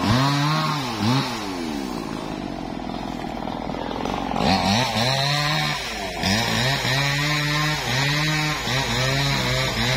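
Two-stroke chainsaw engine revved up and down over and over, its pitch rising and falling about once a second, with a smoother, steadier run for a couple of seconds in the first half.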